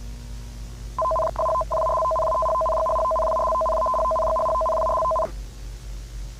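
Emergency-alert attention tone: two steady pitches sounding together. It starts about a second in with two quick breaks, holds for about three and a half seconds, then cuts off sharply. A steady hiss and hum sit underneath.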